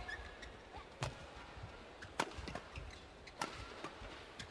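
Badminton rackets striking the shuttlecock in a fast doubles rally: three sharp cracks about a second apart, with fainter knocks between them.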